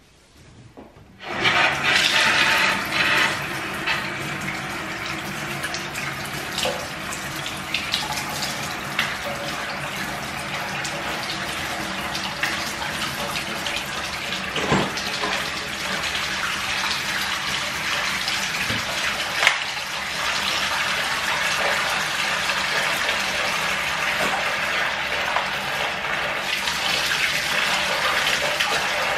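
A bathtub faucet is turned on about a second in, and water pours steadily into a jetted tub as it fills. There are a couple of short knocks partway through.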